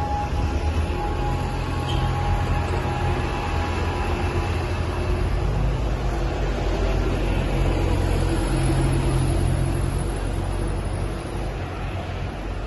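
Busy street traffic with a steady low engine rumble from London double-decker buses running close by.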